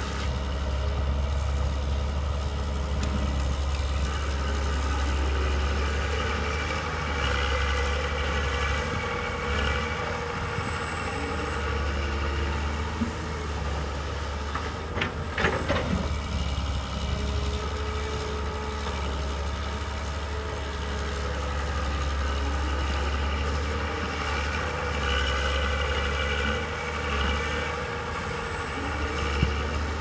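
Diesel engines of two Komatsu excavators running under working load, their note swelling and easing as the booms and buckets move. A single sharp knock sounds about halfway through.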